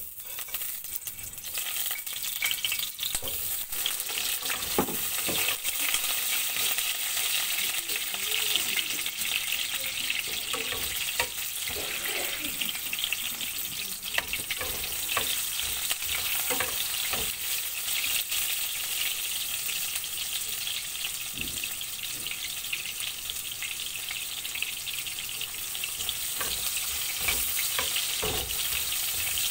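Food sizzling steadily as it fries in a pan, with scattered short knocks and scrapes from a cooking utensil.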